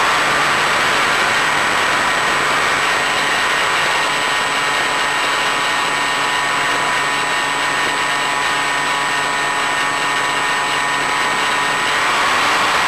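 Onboard audio of an Easystar FPV model plane in flight: its electric pusher motor and propeller run steadily, a constant whine of several steady tones over a dense hiss. The sound eases a little a few seconds in and comes back up near the end.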